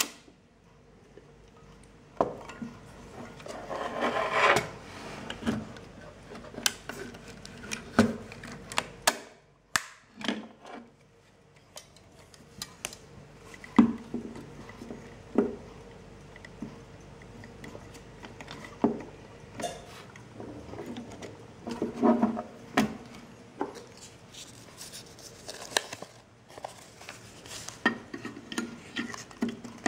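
Hands handling a Belfoca folding roll-film camera: irregular clicks, knocks and rubbing from its metal body, back door and fittings. Near the end a roll of film and its paper backing are handled as it is loaded.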